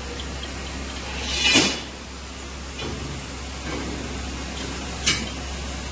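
Noisy phone video-call audio: a steady low hum and hiss, with a loud whoosh that swells and fades about one and a half seconds in and a shorter one near the end.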